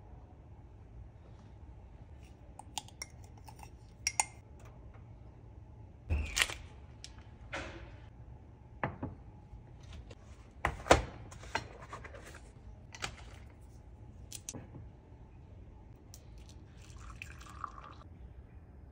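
Tableware clinks and knocks: a metal spoon against a porcelain plate and a ceramic mug set down on a countertop, with the sharpest knock a little past halfway. Near the end, coffee pours from a metal pot into the ceramic mug.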